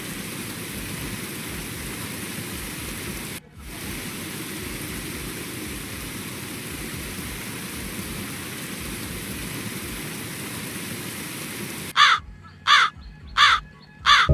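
Steady rushing noise, like running water or rain, then near the end four loud, harsh, caw-like bird calls in quick succession.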